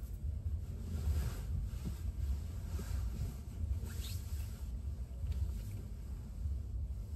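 Steady low road and engine rumble of a car driving, heard from inside the cabin, with faint passing swishes.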